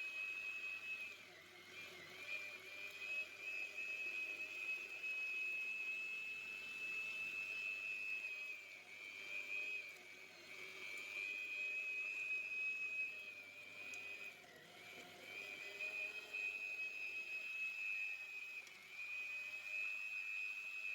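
Electric meat grinder motor running with a steady high whine. Its pitch sags and recovers about four times, the sign of the motor bogging down under load as meat is pushed through the mincing screw.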